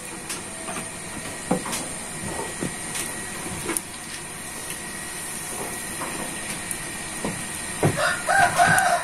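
A rooster crows, a loud call near the end, over a steady hiss with scattered small pops and clicks.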